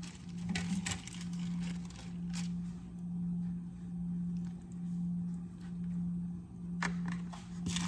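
A steady low hum at one pitch, swelling and fading about once a second, with a few faint taps and soft squishing from hands pressing stuffing onto salmon fillets in an aluminium foil pan.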